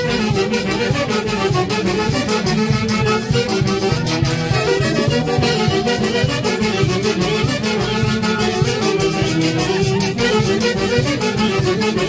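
Live Mantaro Valley orquesta típica playing huaylash: a steady, quick beat with cymbal under a pitched melody.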